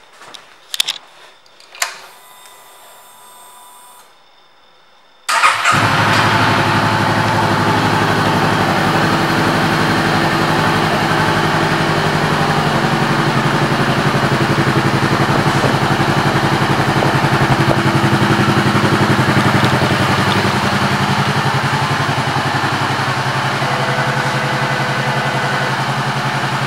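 2014 Honda CBR500R's 471 cc parallel-twin engine, fitted with a Two Brothers aftermarket exhaust, started about five seconds in and then idling steadily. A few clicks and a faint hum come before the start.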